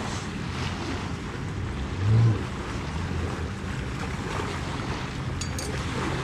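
Wind blowing across the microphone: a steady rush heaviest in the low end, with one louder low buffet about two seconds in.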